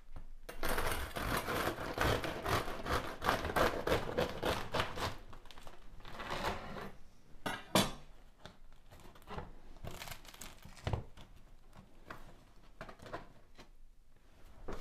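Serrated bread knife sawing through the crisp crust of a freshly baked walnut sourdough loaf on a wooden board: a dense run of crunching, crackling strokes for about five seconds. Then scattered crackles and a single sharp knock about halfway through as the cut loaf is handled and pulled apart.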